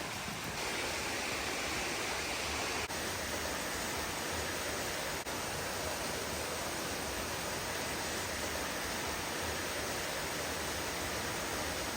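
Waterfall rushing: a steady, even noise of falling water, broken by two brief dips about three and five seconds in.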